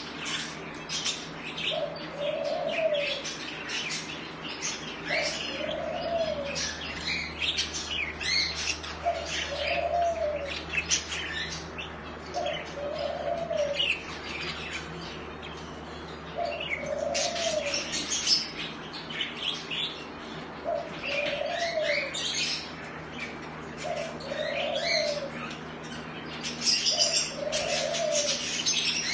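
Budgies chattering and chirping constantly in a cage, with a low coo repeating about every three and a half seconds underneath.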